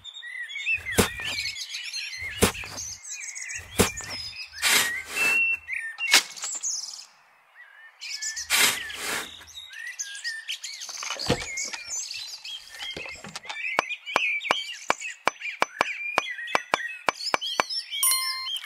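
Small birds chirping, over irregular sharp knocks and clicks, then a run of quick, even clicks at about three a second in the second half.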